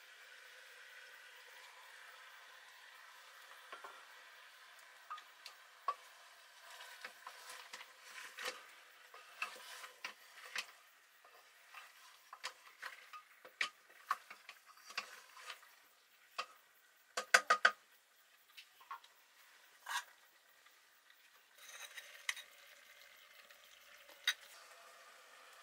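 Wooden spatula stirring and scraping mutton and tomatoes in an open pressure cooker pot, over a faint sizzle of frying. Sharp knocks of the spatula against the pot come often from about four seconds in, with a quick run of four near the middle.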